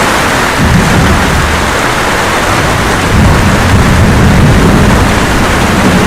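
Steady rain with low rolling thunder, the rumble swelling about half a second in and more strongly from about three seconds in.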